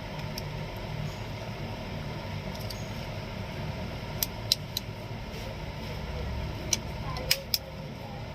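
Sharp plastic clicks, about six in the second half, as a keypad phone's plastic back cover is pried open with a thin blade and its clips snap loose, over a steady low hum.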